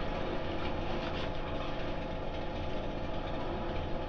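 Petrol lawn mower engine running steadily in the background, with a shaving brush scrubbing lather onto a face.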